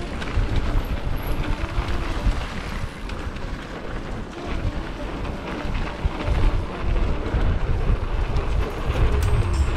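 Wind buffeting the microphone over the rumble and rattle of a mountain bike riding down a dirt singletrack trail, uneven and continuous.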